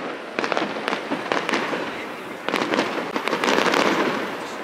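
Aerial fireworks display: clusters of rapid crackling bangs, with short volleys in the first two seconds and a longer, denser run in the second half.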